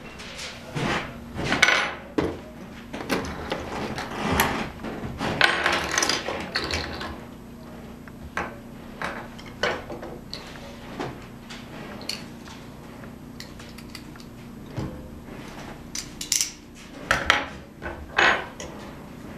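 Hard plastic and metal Beyblade parts being picked out of a plastic stadium and handled: irregular clicks and clatters in clusters, busiest in the first several seconds and again near the end. A faint steady low hum runs underneath.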